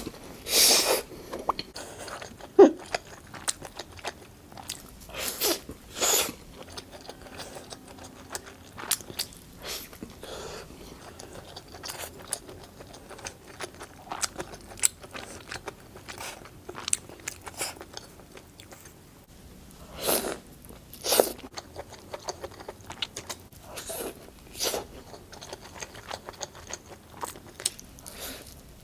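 A person eating close to the microphone: irregular crunchy bites and chewing, with a few louder bites or mouthfuls near the start, about a fifth of the way in and about two-thirds of the way in.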